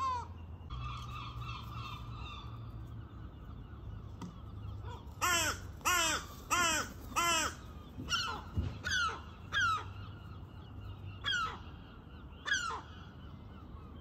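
Crow cawing: a quick run of four loud caws about five seconds in, then several more spaced-out caws, each dropping in pitch.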